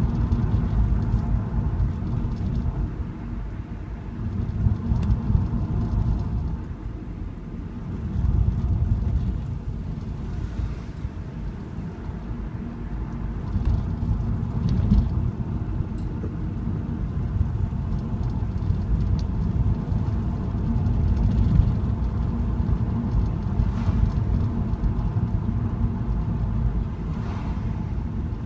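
A car driving along a road: engine and tyre noise making a steady low rumble that swells and eases a little.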